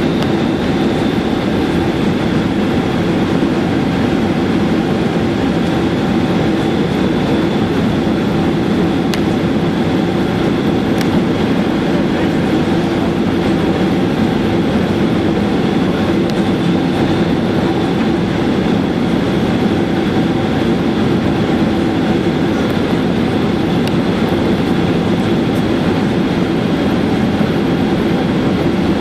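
Steady cabin noise of a Boeing 767-300ER on final approach with its flaps extended: engine and airflow noise heard from a window seat over the wing, with a steady high whine running through it.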